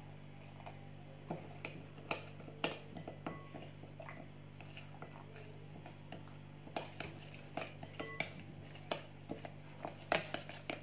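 A hand mixing chicken pieces into a wet spice marinade in a glass bowl: irregular soft clicks and taps against the glass. A faint steady hum runs underneath.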